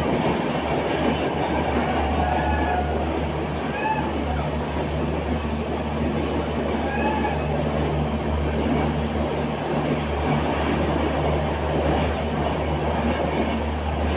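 Passenger train running steadily at speed, heard from on board: a continuous rumble of wheels and carriage on the rails.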